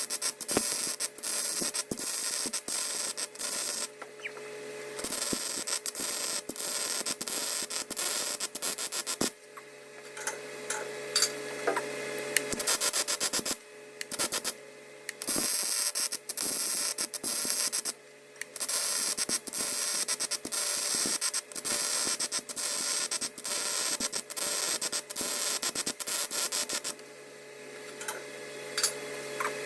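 MIG welding arc crackling as weld is laid on a roller's worn bearing seat to build it up. It runs in long passes, with short stops between them.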